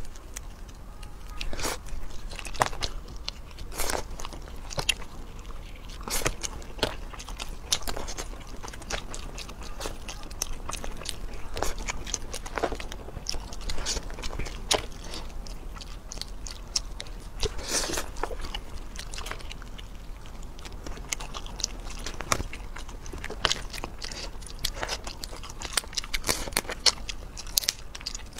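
Close-miked eating of cooked langoustines: chewing with irregular sharp crunches and wet mouth clicks.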